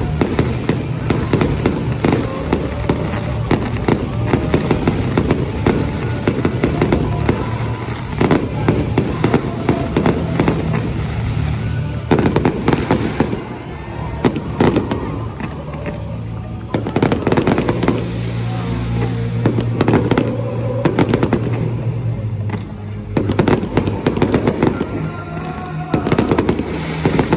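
Fireworks display: rapid, dense crackling and banging bursts of fireworks throughout, with music playing underneath.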